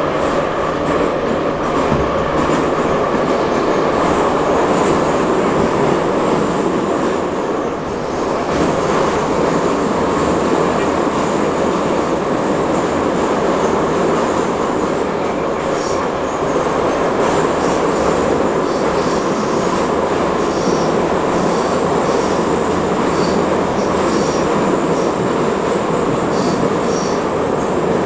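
Kyiv metro train running through a tunnel, heard from inside the carriage: a loud, steady rumble of wheels on rail. In the second half, high-pitched squeals from the wheels come and go.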